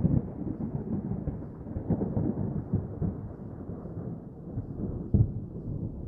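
Distant thunder rumbling and slowly dying away, with a sharper crack about five seconds in.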